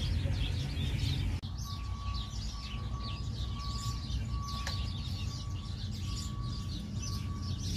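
Many small birds chirping busily and continuously over a steady low rumble of background noise. The background changes abruptly about a second and a half in, and a faint steady tone comes and goes after that.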